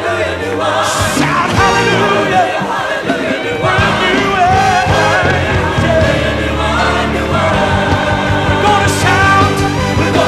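Gospel choir singing with full band accompaniment.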